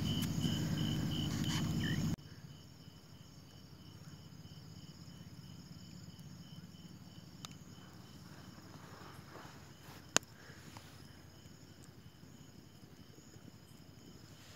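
Night insects chirping steadily, about three chirps a second, over a fainter high steady insect hum. A low rumbling noise cuts off suddenly about two seconds in, and a single sharp click sounds about ten seconds in.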